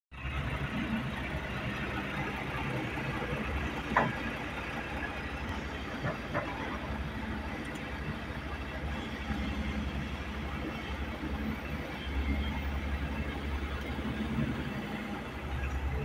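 Diesel engine of heavy earthmoving machinery running steadily with a deep low rumble that grows louder in the last few seconds. A sharp knock comes about four seconds in, and a couple of lighter knocks follow around six seconds.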